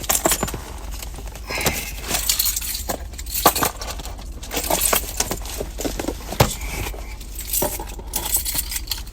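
Irregular clicks, clinks and rustling scrapes of a package being handled and opened by hand.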